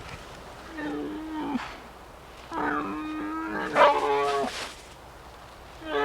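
An animal calling twice: a short call about a second in, then a longer, louder call of about two seconds.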